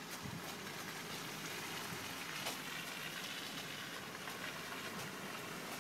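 Steady crackling hiss of a slow-moving car's tyres rolling on a wet dirt road, with a few faint ticks.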